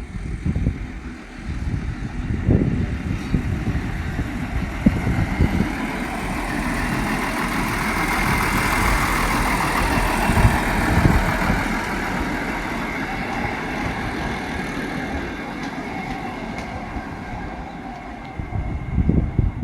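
Train hauled by a diesel locomotive passing, wheels knocking over the rail joints. The rumble builds to its loudest about halfway through, then slowly fades.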